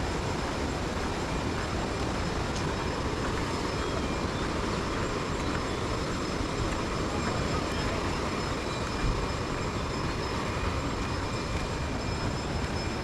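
Steady rushing of a fast-flowing river, an even hiss and rumble without a break.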